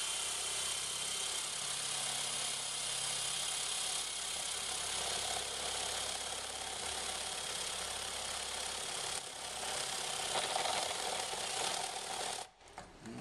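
Cordless drill running steadily with a 32 mm blade bit, boring an access hole through a plastic headlamp bowl. It stops abruptly near the end.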